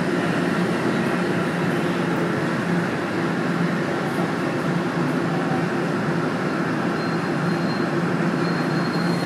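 Toronto Rocket subway train heard from inside the car, running through a station: a steady rumble with a low hum. A thin high whine comes in about seven seconds in.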